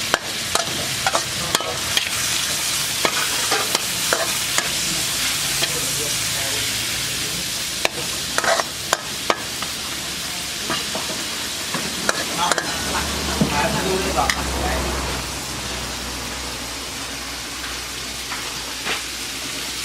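Food sizzling as it fries in a pan while it is stirred, with frequent clicks and knocks of the utensil against the pan. A low hum comes in about two-thirds of the way through.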